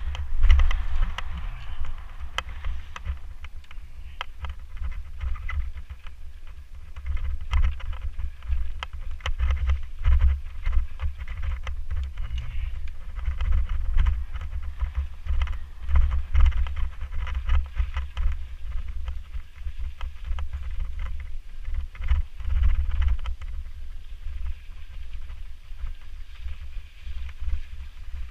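Wind buffeting the camera's microphone while riding a mountain bike over a dirt and gravel trail. It comes as a gusting low rumble, with frequent small clicks and rattles from the bike and its tyres on stones.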